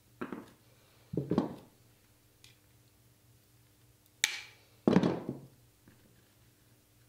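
Tile nippers snapping a piece off a ceramic tile with one sharp crack about four seconds in. Short knocks of the tool and tile pieces on a hard bench come twice at the start and once more just after the crack.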